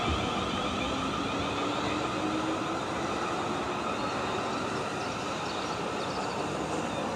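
Class 444 Desiro electric multiple unit running slowly into the platform, its traction equipment giving a steady electric whine over the running noise, with one tone rising slowly in pitch over the first few seconds.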